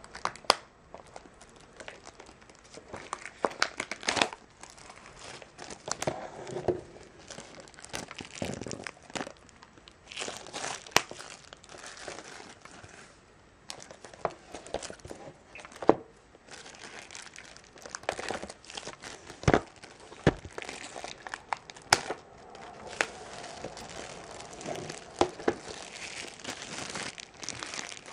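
Clear plastic shrink-wrap being peeled and torn off a DVD case and crumpled in the hand: irregular crinkling with many sharp crackling snaps.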